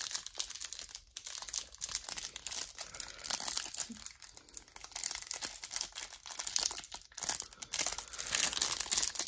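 Clear plastic trading-card pack wrapper crinkling on and off in the hands as it is handled and opened.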